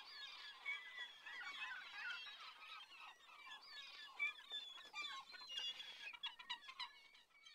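Many birds chirping and calling at once, faint, in a dense overlapping chorus of short chirps.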